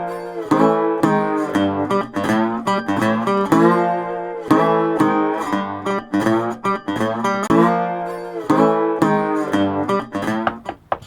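Music on plucked acoustic guitar: a run of picked and strummed chords that fades out near the end.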